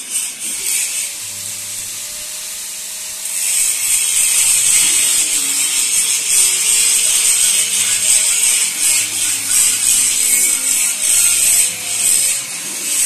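Handheld angle grinder cutting steel, its disc giving a harsh, hissing grind over the motor's whine. The grinding gets louder about three seconds in and keeps on steadily as the disc bites into the metal.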